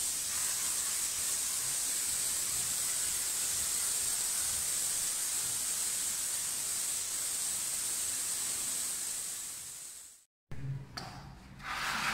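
Gravity-feed compressed-air spray gun hissing steadily as it sprays a coat of varnish onto a door, fading out and stopping about ten seconds in. A few faint knocks follow near the end.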